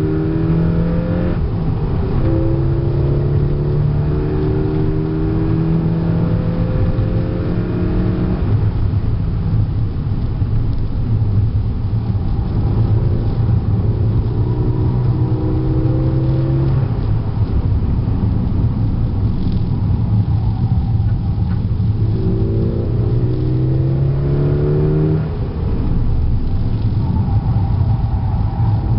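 APR-tuned Golf GTI Mk6's turbocharged 2.0-litre four-cylinder with a K04 turbo and free-flowing exhaust, heard from inside the cabin at track speed. The revs climb under acceleration and fall about eight seconds in as the throttle is lifted. They climb again near the end and break off briefly about 25 s in, at a gear change, over steady tyre and road noise.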